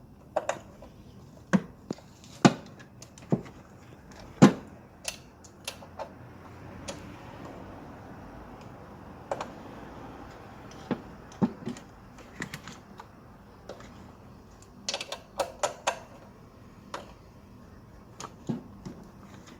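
Hand tools clicking and knocking against metal in an engine bay as ignition coil packs are unbolted and changed. The knocks come at irregular intervals, with a quick run of clicks about fifteen seconds in.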